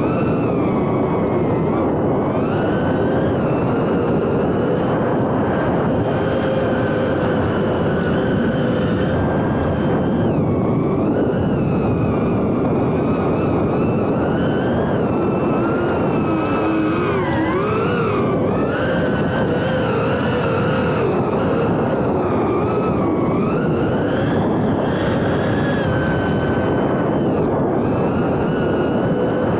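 FPV drone's electric motors and propellers whining continuously, the pitch swooping up and down with the throttle.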